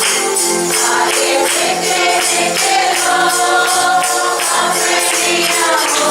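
Group singing a worship song to music, with a tambourine shaken on a steady beat.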